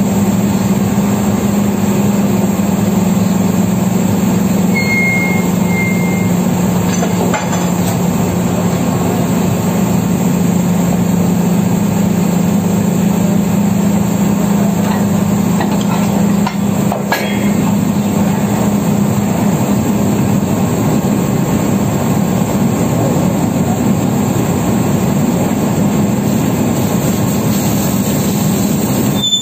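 Drilling rig machinery running steadily during a pull-out of drill pipe: a constant low hum over a dense mechanical rumble, with a couple of faint knocks.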